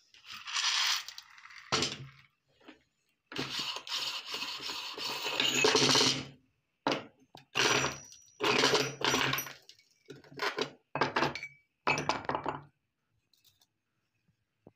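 Glass marbles clinking into a hand-cranked cast-aluminium meat grinder, then the grinder cranked with glass crunching and breaking inside it: one long spell of grinding, then several short bursts.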